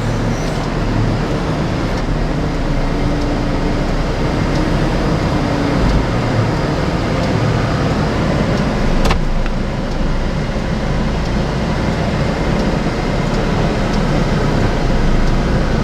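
Telehandler's diesel engine running steadily while it carries and sets straw bales, with one sharp click about nine seconds in.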